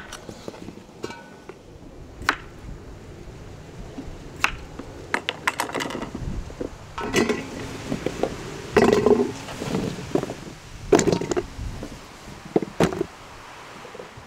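Irregular knocks, clinks and scrapes of cookware and utensils being handled, most of them in the second half.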